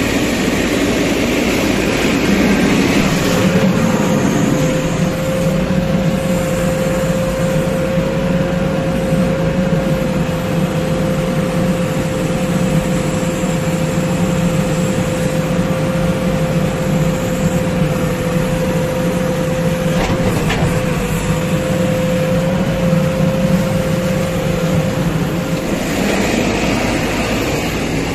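JCB 3DX backhoe loader's diesel engine running under load while its bucket works in a steel tipper body. A steady high whine starts a few seconds in and stops near the end. A single sharp knock comes about two-thirds of the way through.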